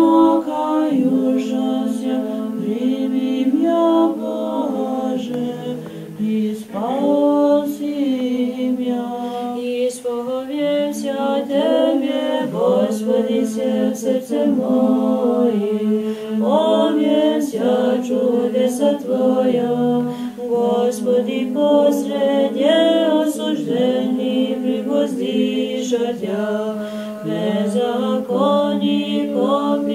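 Orthodox nuns singing unaccompanied liturgical chant together, a low note held steady beneath a moving melody.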